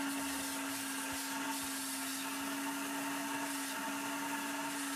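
Upholstery extractor's vacuum motor running with a steady whine while its clear extraction tool is drawn over a cloth seat back.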